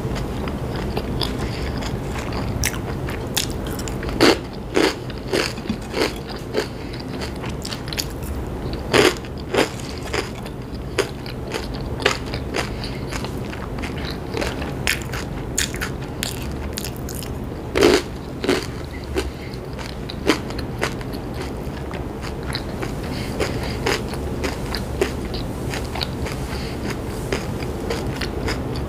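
Close-miked chewing of crunchy chips: a run of crisp crunches and bites, with the loudest crunches about four, nine and eighteen seconds in.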